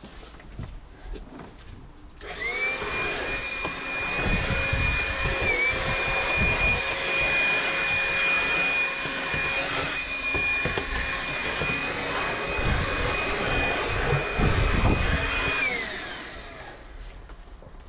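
Makita cordless handheld vacuum cleaner switched on about two seconds in, running with a steady high whine while it sucks up drilling swarf from the van floor, then winding down with a falling pitch when switched off near the end.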